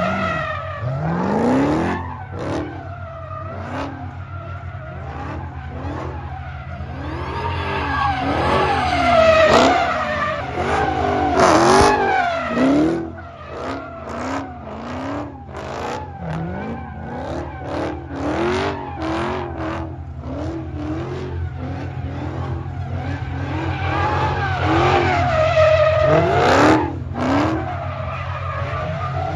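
A car's engine revving up and down while its tires squeal and skid, as in drifting or burnouts. The pitch of the revs and the squeal keeps rising and falling throughout.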